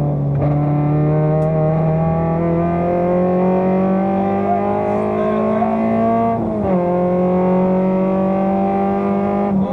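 Fiat Seicento rally car's engine heard from inside the cabin, pulling under acceleration with its pitch climbing steadily. It drops sharply at an upshift about two-thirds of the way in, then climbs again, with another shift near the end.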